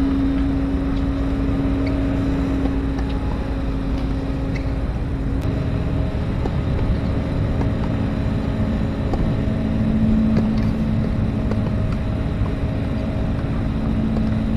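Steady motor drone with a strong low hum that drops slightly in pitch about halfway through, and a few faint sharp knocks from tennis ball strikes.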